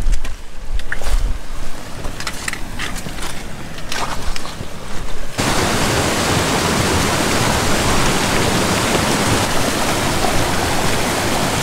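Footsteps and trekking-pole tips crunching and clicking on a loose, rocky path over a low wind rumble. About five seconds in, this switches abruptly to the loud, steady rush of a fast-flowing stream.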